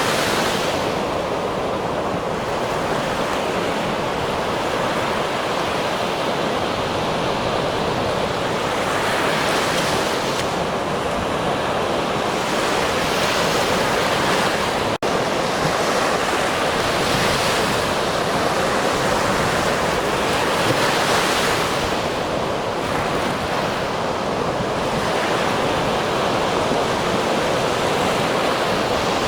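Ocean surf: a steady rush of waves breaking and washing in, swelling and easing every few seconds. There is a momentary cut in the sound about halfway through.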